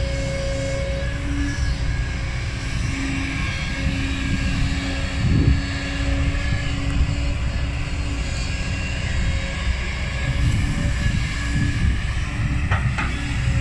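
Kobelco SK200 hydraulic excavator's diesel engine running steadily under load, with a steady hydraulic hum as it digs and swings; it works smoothly. A brief thump about halfway through as a bucket of soil drops into the dump truck's bed.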